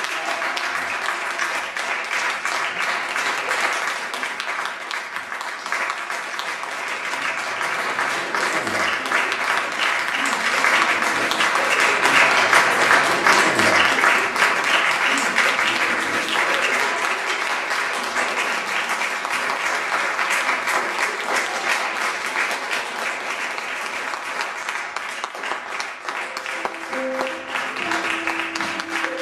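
Audience applauding a curtain call, the clapping swelling about halfway through. Music with sustained notes comes in under it near the end.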